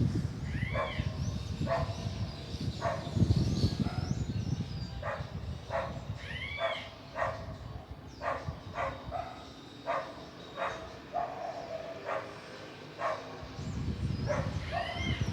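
A dog barking repeatedly in short, sharp barks, about one every half second to a second, over a low wind rumble.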